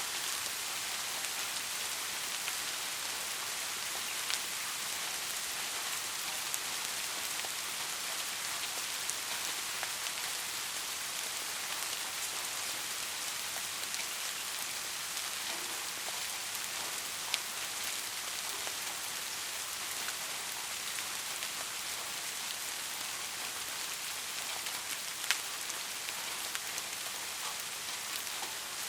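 Steady rain hiss with scattered individual drops ticking, a few sharper single drop taps standing out now and then.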